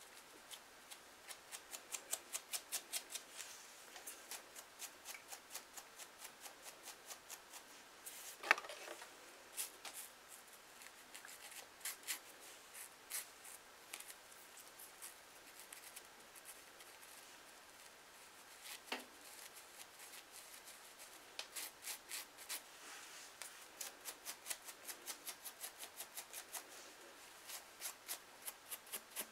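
Faint close scraping of a fine-tooth comb raking a dry, flaky scalp, in quick runs of short strokes, several a second, with two sharper clicks along the way. The dry dandruff flakes give the scratching a crisp, crunchy edge.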